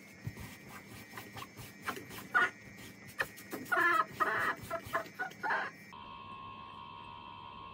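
A nine-week-old baby fussing in short, pitched cries while his diaper is wiped and tucked, with small clicks and rustles from the wipes and diaper. After about six seconds the cries stop and a steady faint hum remains.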